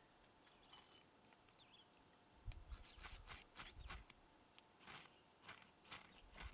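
Faint scraping strokes, about a dozen short ones in quick uneven succession, starting a couple of seconds in, some with a soft low thud.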